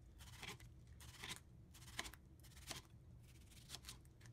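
Kitchen knife slicing through a beefsteak tomato onto a plastic cutting board: five faint, short cuts, one about every three quarters of a second.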